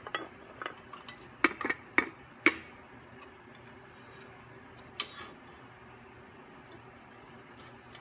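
A handful of sharp metallic clinks from handling a metal tin of cutting fluid and a tap wrench on a drill-press vise, the loudest about one and a half to two and a half seconds in and one more about five seconds in.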